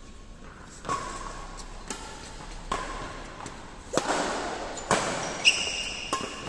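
Badminton rackets striking a shuttlecock during a doubles rally: about seven sharp cracks, roughly one a second, the loudest near the end.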